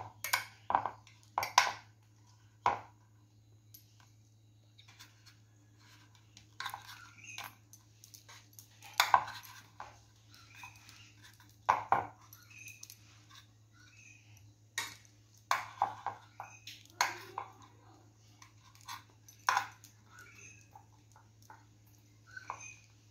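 A steel spoon scraping and clinking against a stainless steel idli mould plate as freshly steamed idlis are prised out of their cups, in irregular sharp clicks and knocks. A faint steady low hum runs behind.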